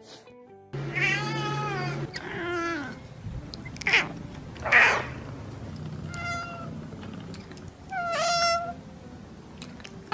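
Domestic cats meowing: a string of separate meows with short gaps between them, some rising and falling in pitch.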